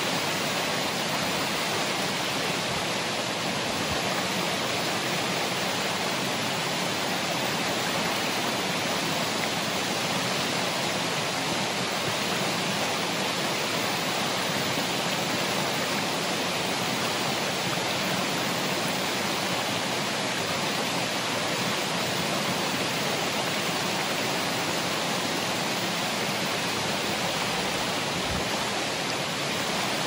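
Ariake Falls, a waterfall, sending down an even, unbroken rush of falling water that holds at the same level throughout.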